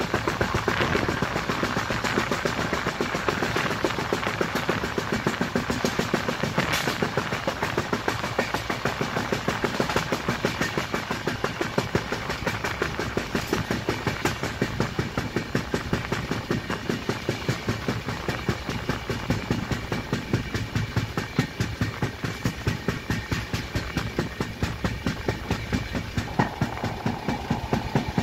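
Express passenger train running on the rails, heard from inside a sleeper coach with opening windows: a steady rumble with a quick, regular knocking from the wheels, about three beats a second. The uploader credits the knocking to a flat wheel.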